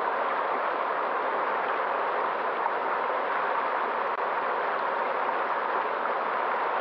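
River water flowing steadily: an even rushing noise with no breaks or changes.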